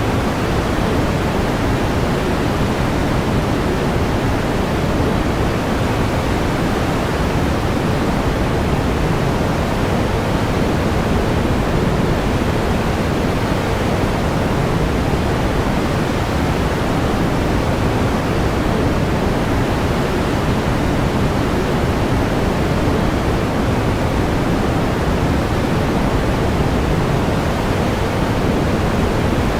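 Steady pink noise: an even, unchanging hiss that is strongest in the low end and softer toward the top.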